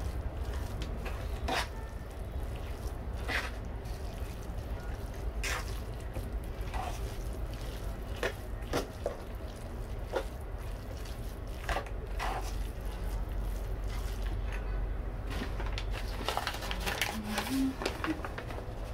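A hand squeezing and working damp grated cassava dough with flour in an aluminium bowl: soft squishing with scattered clicks and scrapes against the metal, over a steady low hum. Near the end a paper flour bag rustles as more flour is tipped in.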